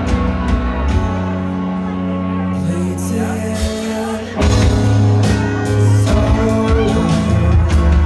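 A live band playing, with sustained bass notes and sharp percussive strikes, growing louder about four and a half seconds in.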